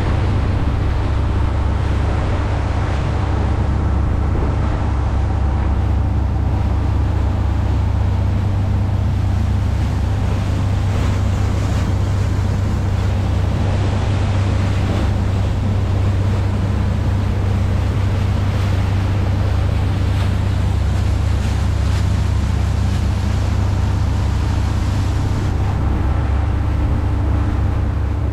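A 1997 Alden 34 motorboat under way at cruising speed in open ocean: a steady low engine drone, over the rush of wind and water along the hull.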